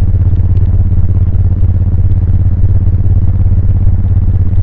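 A 2000 Suzuki VL1500 Intruder LC's V-twin engine running at a steady cruise under way, with a low, pulsing exhaust note that holds an even pitch.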